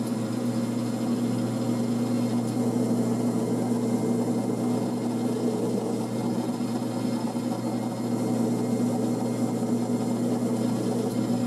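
Grizzly G4000 9x20 metal lathe running at a steady speed, its motor and drive giving an even hum as the chuck spins.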